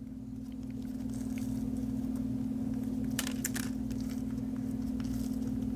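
Potting soil crumbling and crunching as hands work it off a young philodendron's root ball, with a few faint crackles about three seconds in, over a steady low electrical hum.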